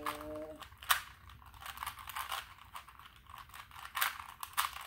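Two plastic Rubik's Cubes being turned quickly by hand: a stream of irregular clicks and rattles as the layers snap round, with a sharper click about a second in and more near the end.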